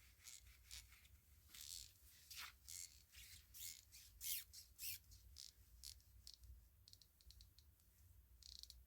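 Toolant 90-tooth 3/8-inch flex-head ratchet being swung back and forth: its pawl gives a faint, high-pitched run of fine clicks in short spells, barely audible. The sound is really quiet and smooth, which fits a high tooth count and a well-greased mechanism.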